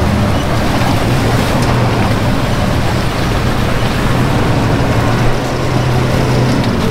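A vehicle engine running steadily, under a dense rushing noise of wind on an unshielded microphone.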